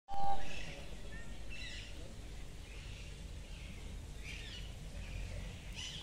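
Small birds chirping in short calls about once a second over a steady low background rumble, with a brief loud tone at the very start.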